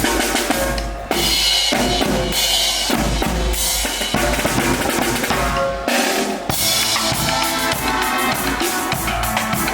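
Music with a steady drum-kit beat, bass drum and snare under pitched instruments.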